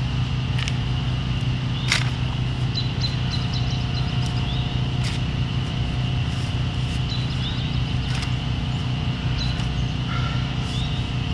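A spade digging into soil: about four sharp scrapes and chops a few seconds apart as the blade is driven in and dirt is lifted. Under it runs a steady low hum, and birds chirp faintly in the middle and near the end.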